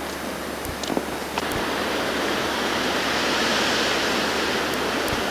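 Wind blowing through a snowstorm, a steady rushing noise that swells about two seconds in and eases off near the end, with a few faint clicks of the camcorder being handled.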